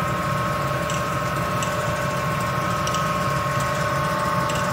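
Ford F-150 4x4 running steadily with its front driveline turning, and a few faint, irregular clicks over the hum. The clicking, likened to a marble, comes from a worn-out CV axle that catches as it turns and has thrown its grease.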